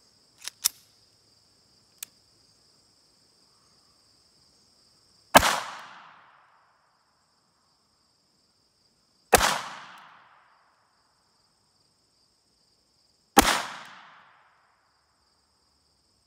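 Three .22 LR pistol shots from a Ruger LCP II, about four seconds apart, each ringing off for about a second: high-velocity CCI Velocitor rounds, then a Mini Mag. A few light clicks come near the start, and crickets chirp steadily throughout.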